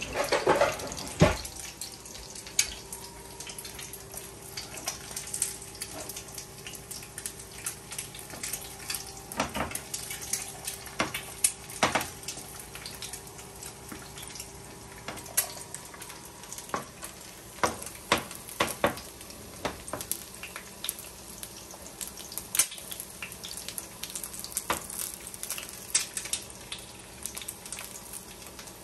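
Eggs frying in oil in a pan: a steady sizzle with scattered pops and crackles. A single knock about a second in is the loudest moment.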